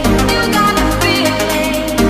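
Electronic dance music with a steady, fast beat and layered synth notes.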